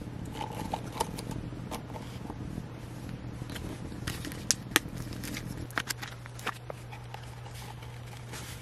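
Paper drip-coffee filter bag being handled: its hanger tabs are unfolded and hooked over the rim of a plastic cup, giving light paper crinkles and scattered crisp ticks, two sharper ones about halfway through. A steady low hum runs underneath.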